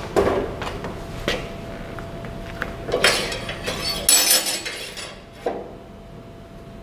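Metal clanks and clinks as a long metal rod is handled and clamped in the vise of a small 4x6 metal-cutting bandsaw. A denser metallic rattle comes about three seconds in, and one more knock about five and a half seconds in.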